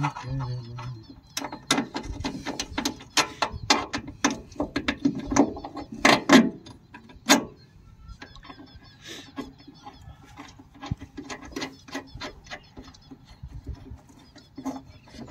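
Metal clicks and clanks from hands working the pulley and gearbox of a combine harvester's cutter drive. The clicks come in a quick irregular run for the first seven seconds or so, then thin out to sparser clicks.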